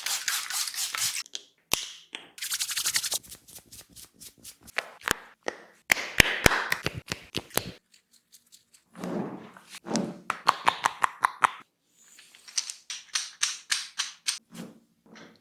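Head massage sounds: quick runs of tapping strokes from hands on the head and body, sharp clicks, and bursts of rubbing hiss.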